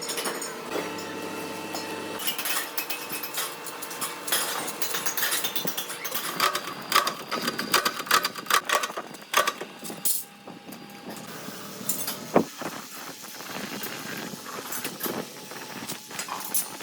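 Factory machinery running, with many irregular metallic clanks and knocks over a steady mechanical noise, from metal being handled and worked in a gas-cylinder factory.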